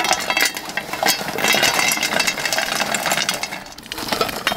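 Burning charcoal lumps tipped from a metal shovel onto a metal pot lid, clattering and clinking in a dense run of small impacts that eases off near the end. The coals are heaped on the lid to heat the pot from above.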